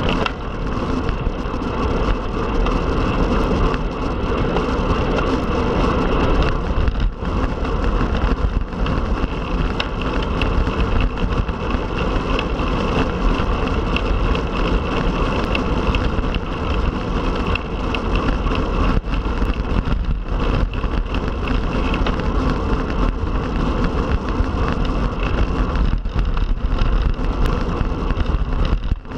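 Wind rushing over the microphone and tyre noise from a road bike ridden at speed: a steady rushing noise, heaviest in the low end, with the odd brief bump.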